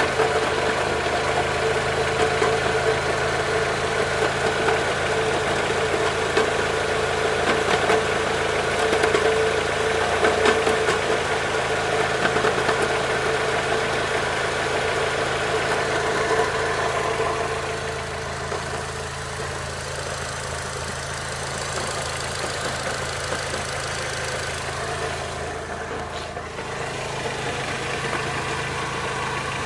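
Mitsubishi Lancer IX 2.0 idling with a knock from the gearbox input shaft bearing, the sign of a worn bearing. About halfway through, the sound gets quieter and a steady whine fades out.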